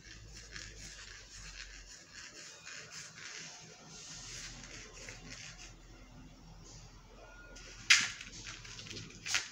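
Faint rubbing and rustling of paper on a tabletop as a cat paws at a sheet, with one sharp tap about eight seconds in and a smaller one near the end.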